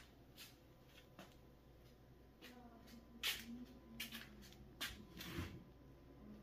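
A few faint, sharp taps and clicks over quiet room tone, the loudest about three seconds in.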